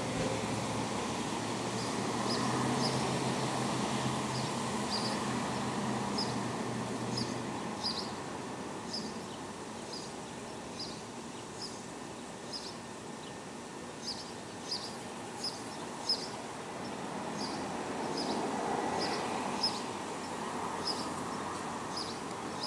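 Outdoor background ambience: a steady noisy hush with a low hum that fades out about eight seconds in. Short high chirps repeat about once a second, often in pairs, with a few faint clicks.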